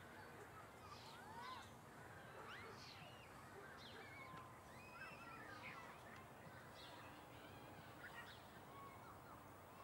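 Faint room tone with scattered, short bird chirps.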